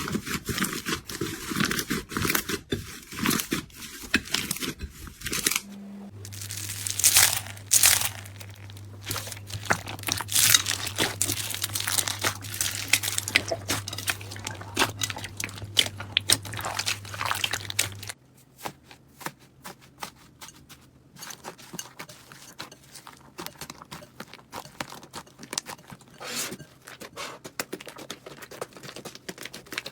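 Crunchy slime being squeezed and pressed by hand, giving dense crackling and popping clicks. The sound changes character twice, about 6 and 18 seconds in, and a steady low hum runs under the middle stretch.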